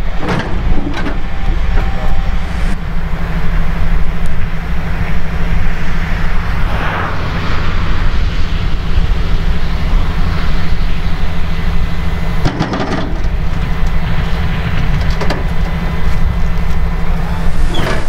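Heavy diesel engine idling steadily, with a clank about twelve and a half seconds in.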